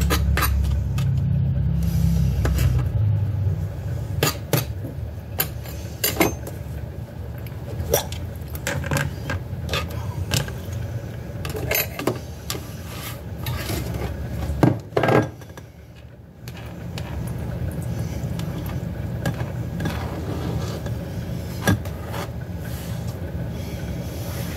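Kitchen knife chopping tomato on a plastic cutting board, irregular sharp taps, with diced pieces dropped into a glass bowl. A steady low hum runs underneath and drops away briefly about two-thirds through.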